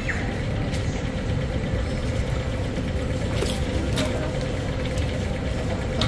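Shop background noise: a steady low rumble with a faint steady hum over it and a few faint clicks.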